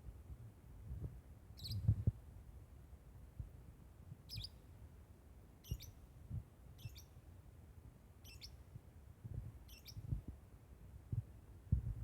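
A lovebird giving short, shrill chirping calls, six of them, one every second or so, which the title takes for the bird calling for a mate that has escaped. Irregular low thumps sound underneath.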